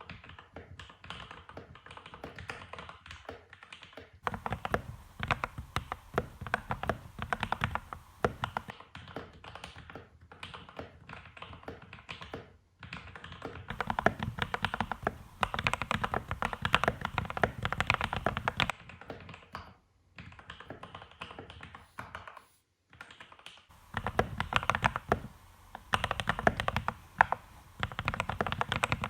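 Typing on a Keydous NJ80 mechanical keyboard with lubed, filmed Gateron Pro Milky Yellow linear switches on a steel plate and a foam-modded case, giving a deep 'thocc' keystroke. The typing comes in bursts, with quick, louder runs of keystrokes alternating with slower stretches and a few short pauses.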